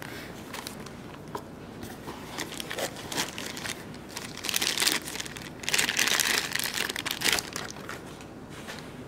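Clear plastic bag crinkling as it is handled and pulled off a boxed nail-drill control unit. It starts with light scattered crackles and grows to two louder stretches of crinkling in the middle.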